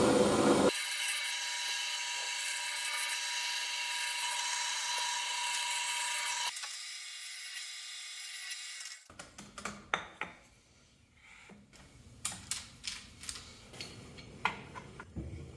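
Old half-horsepower floor drill press running and drilling holes through a wooden jig: a steady running sound with a thin high whine for several seconds, then a quieter hiss. From about nine seconds in come scattered light clicks and taps of hands working at a plunge router's plastic baseplate.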